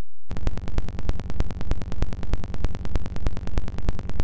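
Electronic oscilloscope-animation audio: a dense, noisy signal full of rapid clicks that starts abruptly about a quarter second in and pulses about three times a second.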